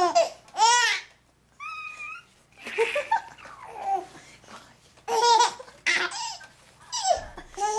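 Four-month-old baby laughing in repeated short bursts of high-pitched belly laughter, with a brief pause about a second in.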